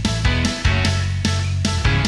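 Loud rock-style music with sustained bass notes and a steady driving beat, about three beats a second.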